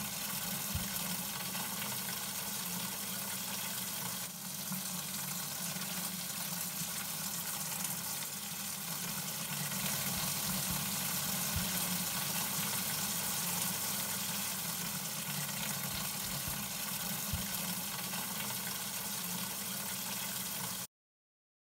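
Water from a hose-end feeder spraying into a plastic watering can, a steady rush of water filling it. It cuts off suddenly near the end.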